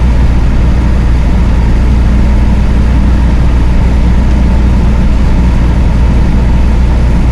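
Chevrolet D20 diesel pickup cruising steadily at about 80 km/h, heard inside the cab: an even low engine drone with road and tyre noise on wet asphalt.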